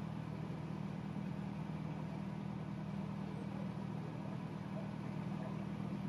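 Narrowboat engine running steadily as the boat cruises along the canal, a low even hum.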